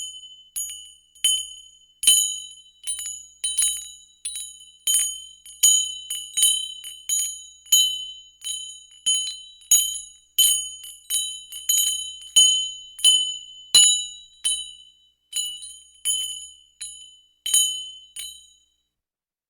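Small bell rung over and over at an uneven pace of about one or two strikes a second, each a clear high ring that dies away quickly. The ringing stops shortly before the end.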